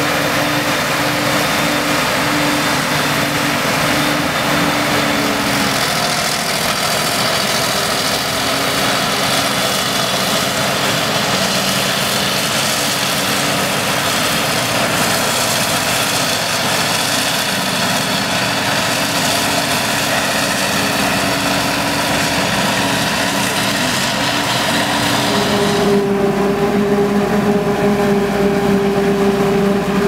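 Claas Jaguar 940 self-propelled forage harvester and the tractor alongside it working steadily while chopping maize: a continuous, loud engine and machine drone. Near the end the drone changes abruptly to a different, higher steady tone.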